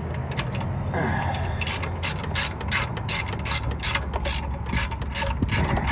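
Hand ratchet and socket clicking in short back-and-forth strokes as an alternator mounting bolt is backed out. The clicks settle into about three a second from about two seconds in, over a low steady rumble.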